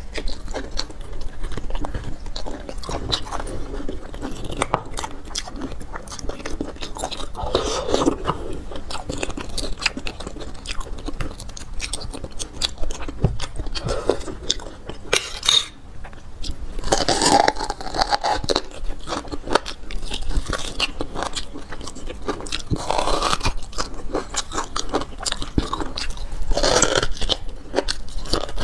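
Close-up eating of braised marrow bones: wet chewing with many small clicks, and several louder sucking sounds as marrow is drawn from the bone ends.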